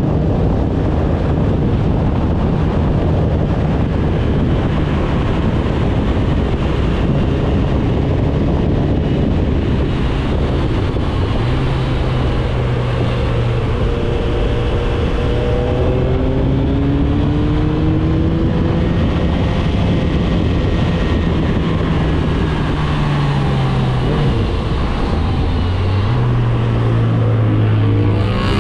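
Motorcycle riding at road speed: a steady engine note under a constant rush of wind over the microphone. Near the end the engine note drops, then climbs again as the bike picks up speed.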